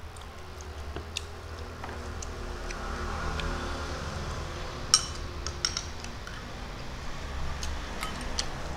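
Eating sounds: scattered small clicks and a metal spoon clinking against a glass bowl, the sharpest clink about five seconds in, over a steady low hum.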